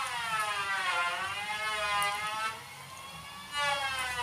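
A wailing, siren-like tone with many overtones. Its pitch slides down and back up, breaks off for about a second, then slides down and up again.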